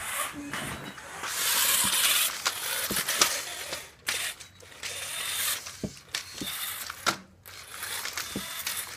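Battery-powered RC car driving in short, uneven bursts: mechanical gear and motor noise that starts and stops, with scattered sharp clicks and knocks.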